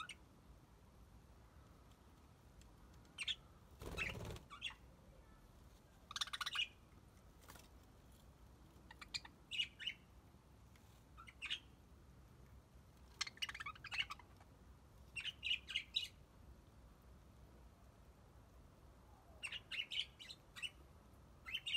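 Budgerigars chirping in short scattered bursts of a few quick high chirps, with pauses between. There is a brief rustling whoosh about four seconds in.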